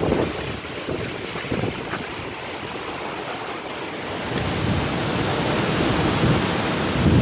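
Hurricane wind blowing hard and buffeting the microphone in gusts, growing louder about halfway through.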